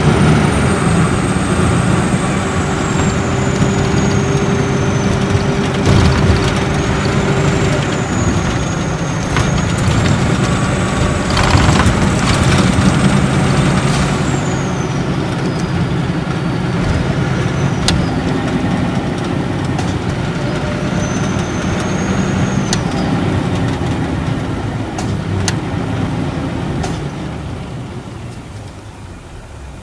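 Nissan Diesel Space Arrow RA coach's inline-six turbo diesel, with torque-converter automatic, driving, heard from inside the coach. The turbocharger's high whistle rises and falls over the engine's drone, and a short hiss comes about twelve seconds in. The engine sound dies down near the end.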